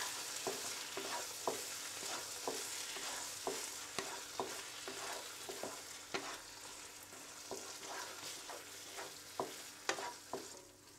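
Wooden spatula stirring minced meat in a non-stick wok, knocking and scraping against the pan about twice a second over a steady sizzle, as tomato ketchup is mixed into the frying mince.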